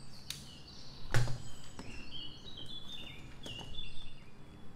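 Small birds chirping in the background, with a few light clicks and one louder knock about a second in, as hard objects are handled on a wooden table.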